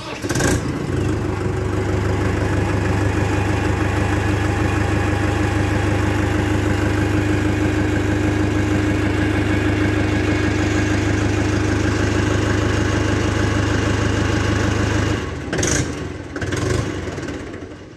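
Mahindra 575 DI XP Plus tractor's 2979 cc four-cylinder naturally aspirated diesel engine starting up and then idling with a steady, even sound. It is shut off about three-quarters of the way through, and a few brief knocks follow.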